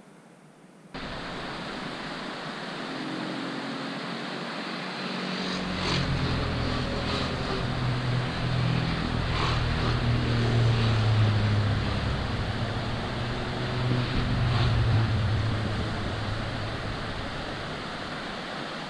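Steady rush of a mountain stream cascading over rocks, starting abruptly about a second in. A low rumble joins about five seconds in and swells through the middle.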